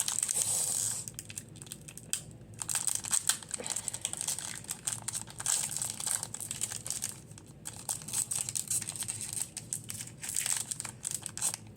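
Foil Pokémon booster pack wrapper being torn open and crinkled in the hands, crackling unevenly with louder rustles every second or two.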